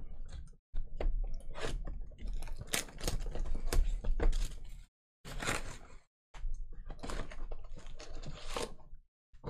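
A sealed Panini Legacy Football hobby box being torn open and its stack of foil card packs pulled out and handled. Crackling, tearing cardboard and wrapping and crinkling foil come in several stretches, broken by short gaps.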